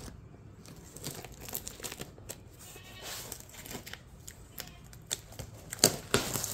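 Plastic stretch wrap and packing tape on a cardboard box crinkling and tearing as a pocket knife cuts it open, in irregular crackles, with the loudest rustling near the end.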